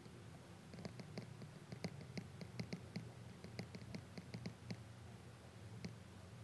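Apple Pencil tip tapping and stroking on an iPad Pro's glass screen: a run of faint, light clicks, thickest through the middle, over a low steady hum.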